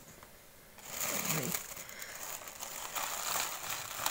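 Packing paper rustling and crinkling as hands dig an item out of the box: orange tissue paper and honeycomb kraft paper wrap being pushed aside and pulled. It starts about a second in and goes on as a steady crackly rustle.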